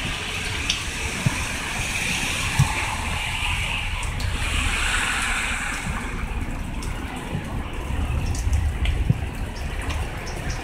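Steady rain falling on pavement and plants, a continuous watery hiss with scattered sharp drips, over a low rumble.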